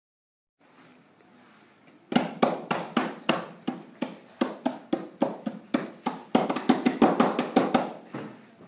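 Hands slapping repeatedly against a classroom whiteboard: a run of sharp smacks, about three or four a second, starting about two seconds in and coming closer together near the end.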